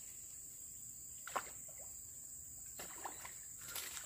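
Quiet forest-swamp ambience: a faint steady high-pitched drone with a few soft clicks, the sharpest a little over a second in.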